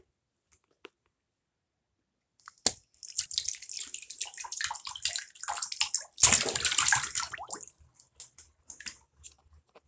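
Water in a bathroom sink: a sharp click, then a few seconds of splashing and gurgling as the basin drains, loudest about six seconds in, tapering off into scattered drips.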